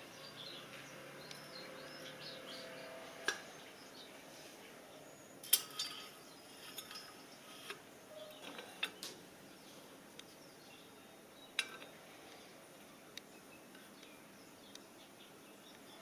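Scattered light metallic clinks and taps of small metal parts being handled, about a dozen at irregular intervals, the sharpest about five and a half seconds in.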